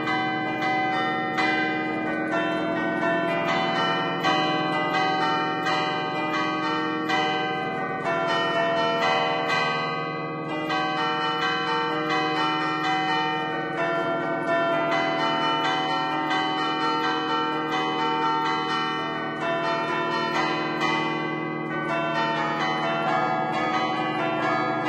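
A concerto of ten church bells in A, cast by Barigozzi in 1950, played by hand from a wooden-lever keyboard in the tower: a fast, unbroken allegrezza, the traditional festive bell tune, with quick overlapping strokes that ring on into each other.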